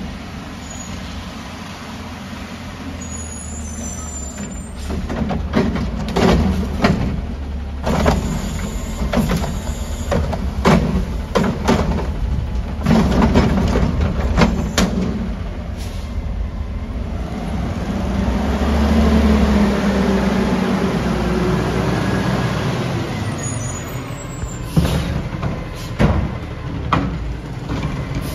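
Curotto-Can automated garbage truck working a curbside cart: the diesel engine drones steadily while the arm's grab and dump sets off a dense run of sharp knocks and bangs from the cart and can. The engine then swells for several seconds in the middle, followed by a few more sharp bangs near the end.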